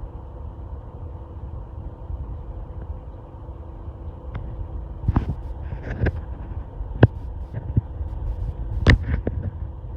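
Electric fan heater running with a steady low rumble and faint hum. Several sharp clicks and knocks break in from about four seconds in, the loudest near the end.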